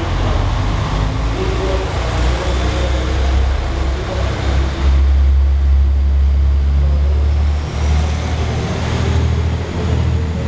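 Diesel engines of a KiHa 185 series railcar running under power as the train pulls out of the station and passes close by: a deep, steady engine drone that grows loudest about halfway through.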